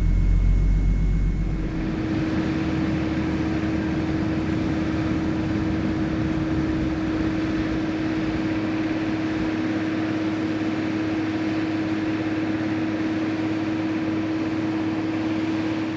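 Avro Shackleton's Rolls-Royce Griffon piston engine being shut down: its loud low note drops away about a second and a half in, and the contra-rotating propellers wind down under a steady hum and whir.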